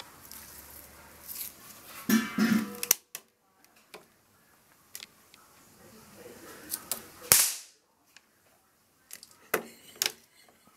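A few sharp pops and clicks. The loudest is a single crack about seven seconds in, after a short noisy stretch near the start.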